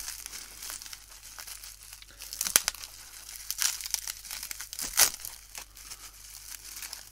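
Plastic bubble wrap crinkling and rustling in the hands as it is unwrapped from a small model part, with two sharper, louder crackles about two and a half and five seconds in.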